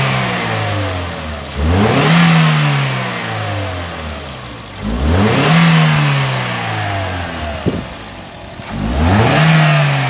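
Toyota Corolla GLi's four-cylinder petrol engine revved from idle in three quick blips, each rising fast and sliding slowly back down to idle; a fourth is already falling at the start. It is a sound check of the engine just after its tappets were set to cure a noise complaint.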